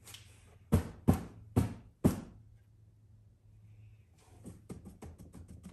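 Four sharp knocks about half a second apart as the test ramp board is shifted and set to a steeper angle, then a quick run of light clicks and taps near the end.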